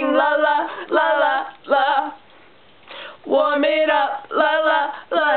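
Female voices singing unaccompanied, in short phrases of held, wavering notes, with a pause of about a second near the middle.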